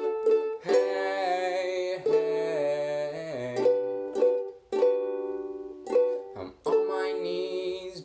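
Instrumental passage of a homemade song: a strummed acoustic string instrument playing chords, some struck in quick strokes and some left ringing.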